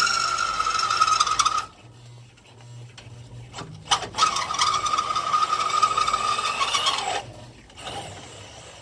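Electric drill driving a Champion 3/4-inch frame reamer step bit through 1/2-inch steel angle iron, cutting with a steady high whine and grinding. It stops about a second and a half in, starts again about four seconds in and runs for about three seconds. The user says the bit wants a bit more oil.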